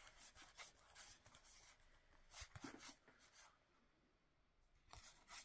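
Faint rubbing and soft clicks of stiff printed trading cards being leafed through by hand, with about a second of near silence past the middle.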